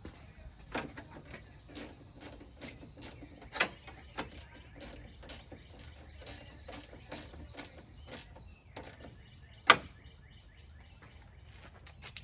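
Irregular sharp clicks and knocks from hand-tool work on the truck's front end, about one or two a second, with one much louder click about ten seconds in.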